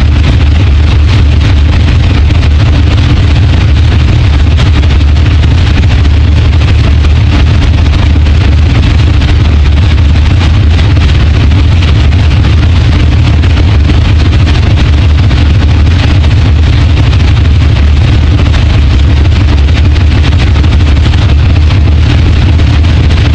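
Drag car's engine idling loud and steady, heard from inside the cockpit, with no revving.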